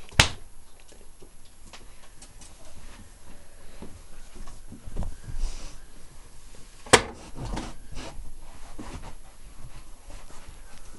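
A puppy moving about and playing on a fabric-covered bed: soft rustling and light taps, with two sharp knocks, one just after the start and one about seven seconds in.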